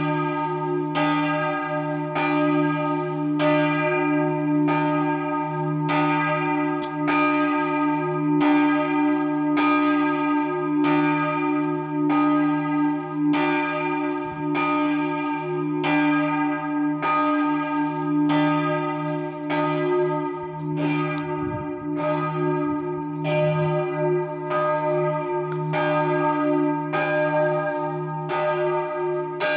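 Middle bell of a three-bell Capanni peal cast in 2009, rung swinging (a distesa) for the midday call: its clapper strikes about once a second, each stroke ringing into the next over a steady low hum.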